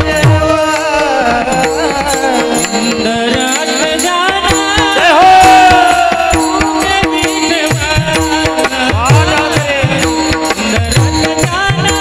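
Male voice singing a Marathi devotional panchapadi in kirtan style, with hand-drum strokes and a steady drone note underneath. The singer holds one long note about halfway through, the loudest moment; the drum is sparse in the middle and picks up again near the end.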